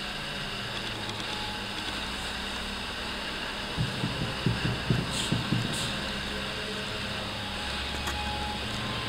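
Steady background hum, with a run of irregular low thumps from about four to six seconds in.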